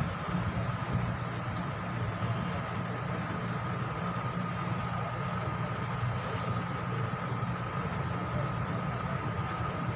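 A steady, low mechanical drone with a constant high-pitched whine running through it, unbroken.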